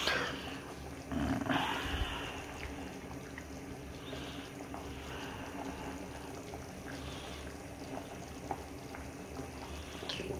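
Pot of leek and macaroni stew simmering on a gas stove, giving a steady low bubbling, with a short louder noise about a second in.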